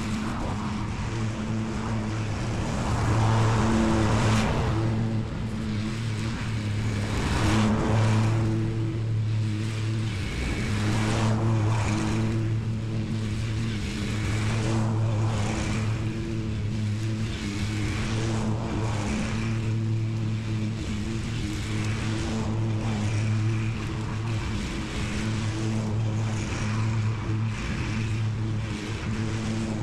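Lawn mower engine running steadily at mowing speed, with the cutting noise getting louder for a moment every few seconds.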